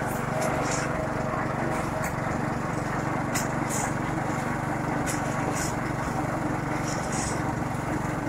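Small engine of a portable drum concrete mixer running steadily as the drum turns, with a few short high rustles over it.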